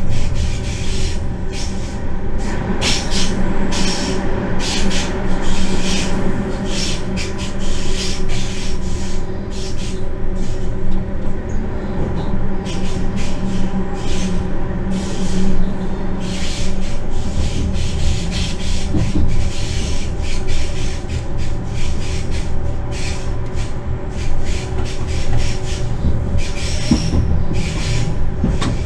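Running noise heard from inside an electric freight locomotive's cab: a steady low rumble with a constant electrical hum, and frequent irregular clicks and scrapes from the wheels running over the track and points.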